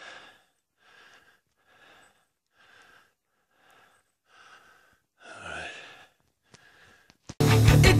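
A man breathing hard, out of breath from climbing a steep slope, taking about one breath a second, with a louder breath about five and a half seconds in. Rock music cuts in near the end.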